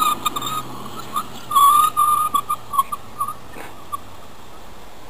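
Scooter brake squealing: a high-pitched squeal held for about a second, then a string of short squeals that die out about three seconds in.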